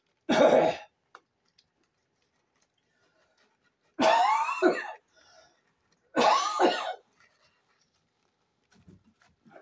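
A person coughing three times: a short cough about a third of a second in, then two longer, voiced coughs about four and six seconds in.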